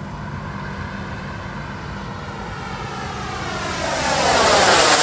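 J-10 jet aircraft flying past. A steady engine whine swells sharply over the last two seconds as the jet passes close by, its pitch sweeping down and back up as it goes over.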